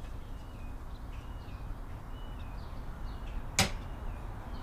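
One sharp snap about three and a half seconds in, as spring-loaded hog ring pliers clamp a hog ring on a seat cover. Behind it, a small bird repeats a short high chirp that steps down in pitch, roughly every second.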